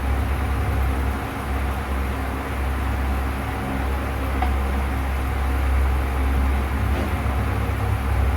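Steady low droning hum with a couple of faint, brief ticks, one around the middle and one near the end.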